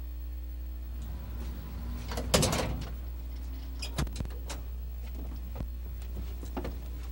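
A van's front door unlatched and opened with a loud clack about two and a half seconds in, followed by several lighter knocks and clicks as it is handled. A steady low hum runs underneath.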